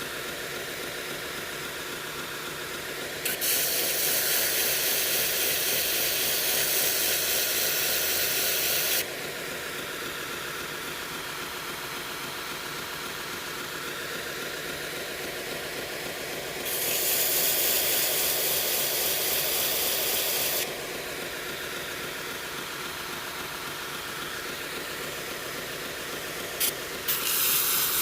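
Belt grinder running with a 120-grit belt, with a steel knife blade pressed to the belt in three passes of loud hissing grinding: about three seconds in for some six seconds, again from about 17 to 21 seconds, and once more just before the end. Between passes only the grinder's steady running is heard.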